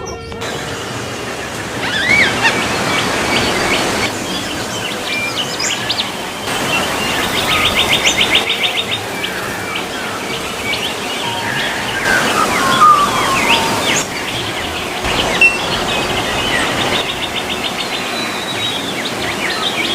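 Wild birds singing and calling: scattered chirps and whistles, with a rapid, even trill twice, over a steady background hiss of outdoor ambience.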